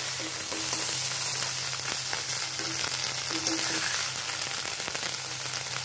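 Ghatkol leaf paste frying in oil in a kadai, a steady sizzle now that its water has cooked off, with a metal spatula now and then scraping as it is stirred.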